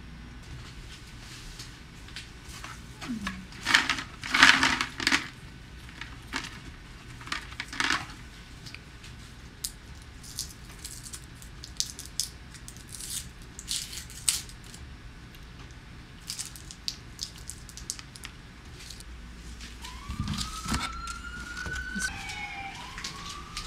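Scattered clicks, taps and rustles of objects being handled, busiest in the first third. Near the end come two rising squeaky tones.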